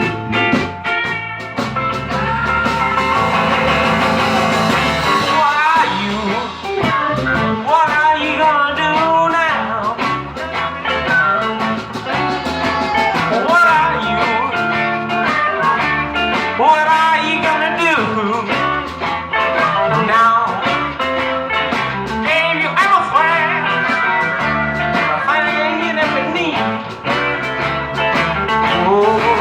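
A live blues band playing, with guitar lines over bass and drums, and bending, wavering pitched lines that may be vocals.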